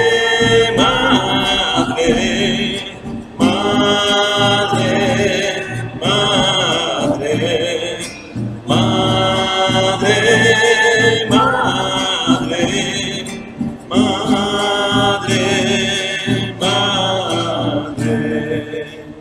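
A Spanish Marian hymn sung to acoustic guitar accompaniment, in sustained phrases of a few seconds.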